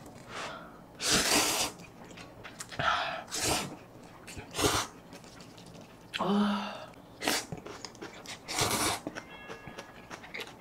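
A series of loud, wet slurps of spicy instant ramen noodles, about seven in all, each a fraction of a second long, with quieter mouth sounds between them.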